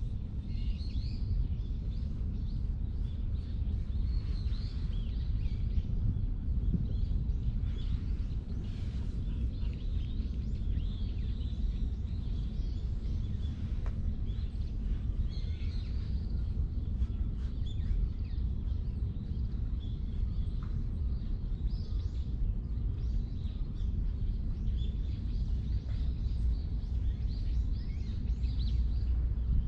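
Outdoor background with a steady low rumble, and small birds chirping faintly off and on.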